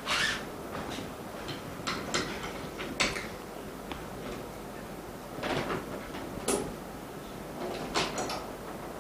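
Irregular clicks, taps and short scrapes of small parts and tools being handled on a workbench, about eight in all, over a steady background hum.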